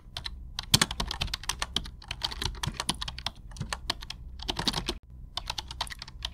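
Computer keyboard typing: a rapid, irregular run of keystroke clicks, with a brief break about five seconds in.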